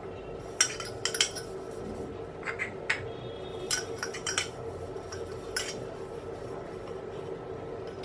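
Scattered light clinks and taps of a brass sev maker (sancha) being handled and greased with oil, over a steady faint hum.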